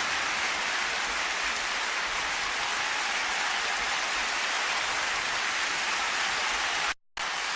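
Concert crowd applauding between songs, a steady dense clapping with no music, broken by a brief sudden dropout to silence near the end.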